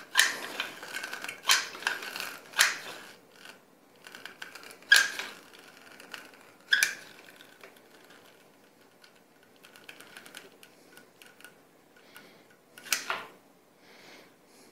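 Caulking gun being worked to lay a bead of silicone sealant: a string of sharp, irregular clicks from the trigger and plunger rod, spaced a second or more apart.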